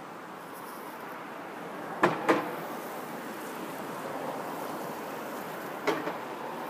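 Cars passing on a wet street, a steady hiss of tyres and traffic, with two sharp knocks in quick succession about two seconds in and another near the end.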